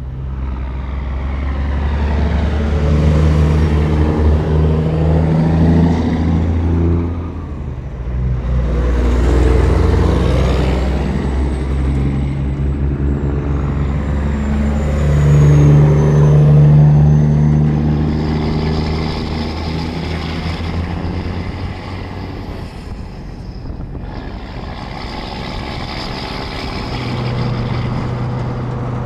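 Three Peterbilt 379 semi trucks with heavy loads pass close by, one after another. Their diesel engines are pulling hard, and each pass swells and fades, the third the loudest. After that comes steady highway engine and tyre noise from a truck running alongside at speed.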